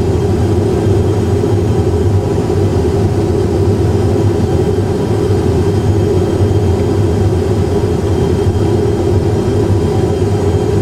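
Airbus A320 full flight simulator's in-flight cockpit sound: a steady drone of simulated engine and airflow noise, with a deep hum beneath, unchanging throughout.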